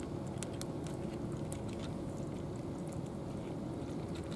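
Two cats eating dry kibble from plastic trays: irregular small crunching clicks of chewing, over a steady low hum.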